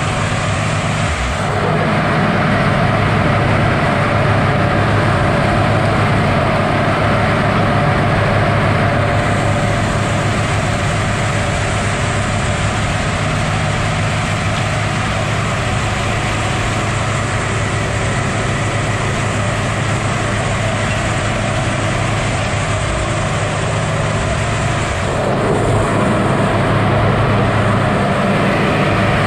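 Log loader's diesel engine and hydraulics running steadily, a constant loud drone.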